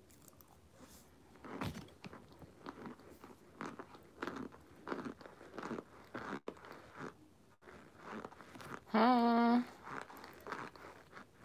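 Chewing and crunching on chunks of cornstarch, a run of soft, irregular crunches. About nine seconds in comes a short, steady-pitched hum, the loudest sound.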